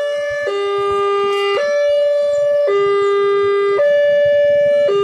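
Railway level-crossing warning alarm sounding its electronic two-tone signal: a lower and a higher tone alternate, switching about once a second. It warns that the crossing is closed for a train, with the barrier arm lowered across the road.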